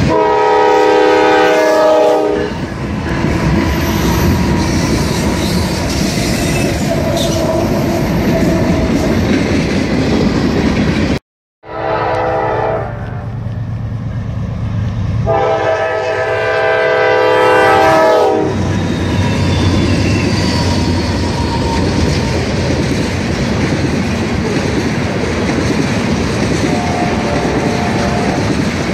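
Freight train horns from Norfolk Southern diesel locomotives: a horn chord sounds for about two seconds over a passing train. After an abrupt cut, a second train sounds its horn twice, a short blast and then a longer one, as it approaches. Then comes the steady rumble and clickety-clack of freight cars rolling past.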